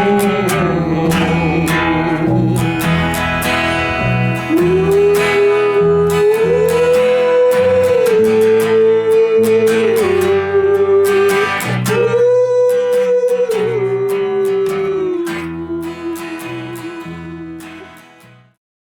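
Background guitar music with a held melody line, fading out to silence near the end.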